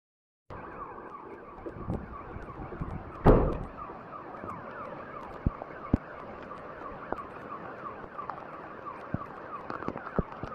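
An alarm siren starting about half a second in, its pitch falling over and over several times a second, over a steady rushing noise. There is a loud knock about three seconds in.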